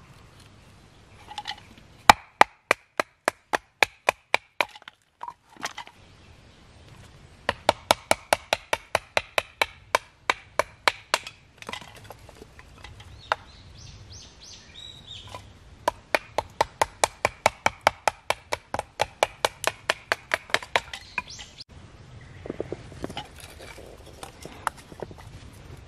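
A blade chopping into dry firewood while preparing feather sticks: sharp wooden knocks about four a second, in three runs of several seconds each.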